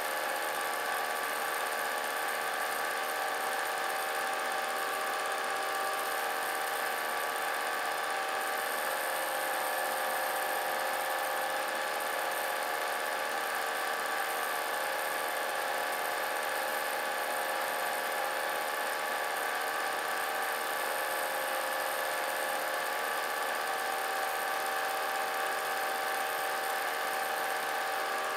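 Vintage film projector running, its motor and mechanism making a steady, even whir.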